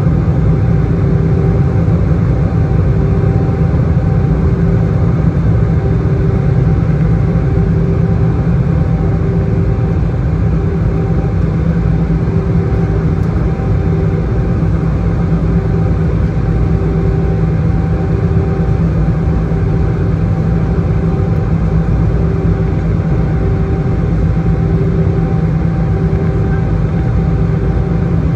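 Steady engine and airflow noise inside the cabin of an Airbus A319 descending on arrival, heavy in the low end, with a mid-pitched hum that pulses about once a second.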